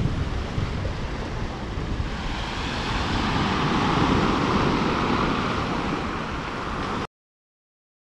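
Sea waves breaking and washing up a pebble beach, swelling a few seconds in. The sound cuts off suddenly about seven seconds in.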